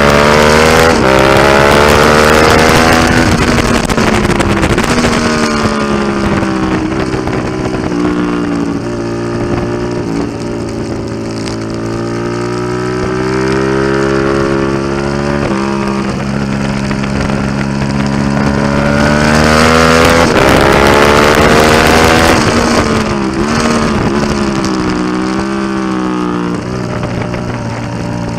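Suzuki SV650's V-twin engine, heard from a camera on the bike through its Delkevic aftermarket exhaust, being ridden hard on track. The revs climb under acceleration and fall away into the corners, loudest near the start and again about two-thirds of the way through.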